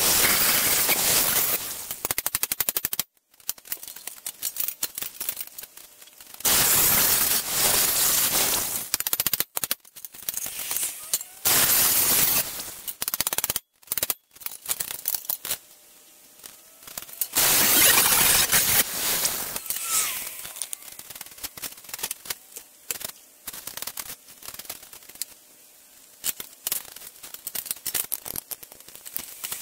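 Angle grinder grinding weld and angle-iron clips off a rusty steel beam, in five bursts of a few seconds each with pauses between. After about twenty seconds, only scattered light clicks and knocks.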